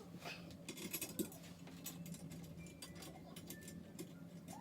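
Scattered light clicks and rattles of flat-pack chair parts and hardware being handled during assembly, over a low steady hum.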